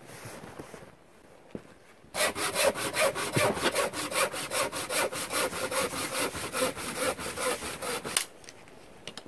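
Hand saw cutting wood with quick back-and-forth strokes, about three or four a second. The sawing starts about two seconds in and stops abruptly near the end.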